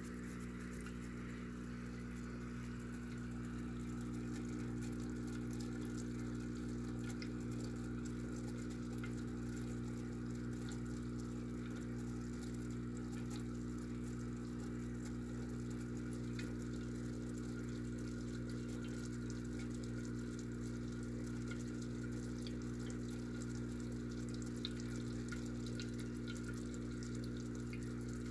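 Aquarium pump humming steadily in a low, even drone, with the faint fizz and tick of bubbles in the tank water.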